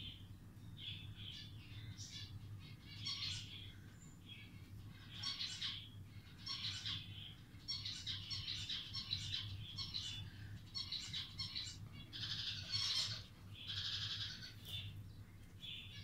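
Lutino budgerigar chattering: a steady run of short high chirps and warbles, one after another with brief pauses, over a faint steady low hum.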